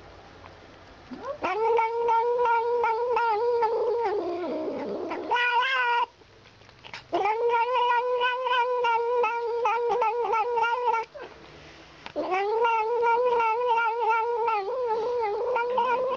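A cat yowling in three long, drawn-out calls of about four seconds each, each held at a steady pitch. The first slides downward and ends in a short, higher cry.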